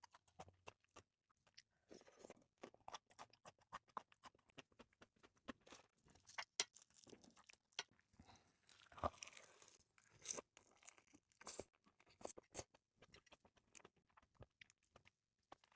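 Close-miked chewing of red shrimp sashimi with salmon roe in mayonnaise sauce: a steady run of many short, irregular wet clicks and smacks, a few of them louder.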